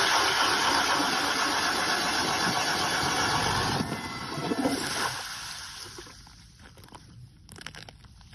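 Power ice auger drilling through pond ice, running loud and steady, then winding down and stopping between about four and six seconds in. A few light clicks and knocks follow.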